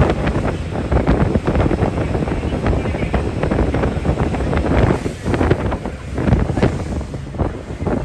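Strong wind buffeting the microphone on a fast-moving motor boat, in uneven gusts, over the rush of its wake and the choppy waves.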